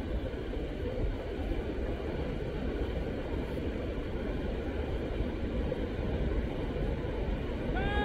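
Steady low rumble of wind and surf on the beach. A single bird call, rising then falling, comes right at the end.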